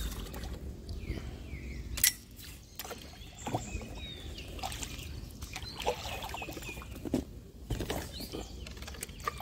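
Homemade paddle dipping and pulling through canal water, splashing and dripping, as a small DIY boat is paddled along. A sharp knock about two seconds in, with a few lighter knocks later.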